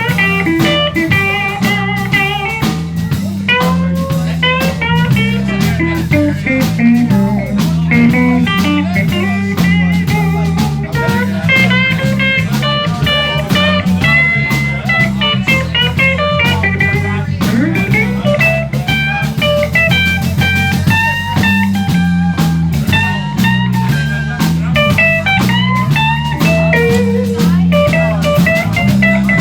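Live blues band playing an instrumental passage: electric guitar lead lines with bent notes over a walking bass and a steady drum kit beat.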